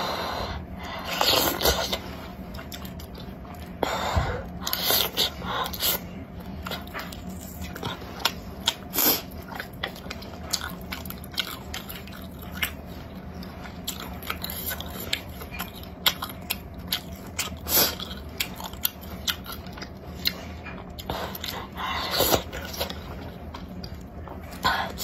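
Close-up eating of chili-oil wontons: wet chewing and lip-smacking, with a few longer, louder slurps.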